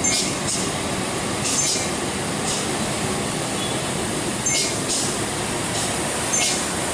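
Road traffic climbing a steep hairpin: the steady drone of a heavy diesel truck and motorcycle engines under load, with short hissing bursts every second or two.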